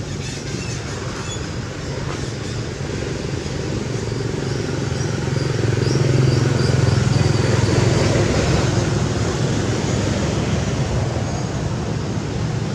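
A motor vehicle's engine running off to one side, a steady low rumble that grows louder toward the middle and then eases off.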